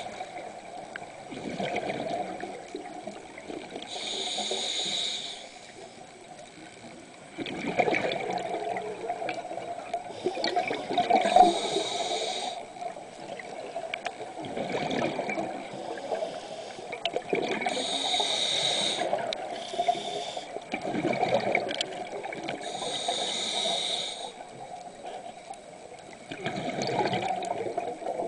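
Scuba diver breathing through a regulator underwater. A short hissing inhale comes every five to seven seconds, and each is followed by a longer rush of exhaled bubbles.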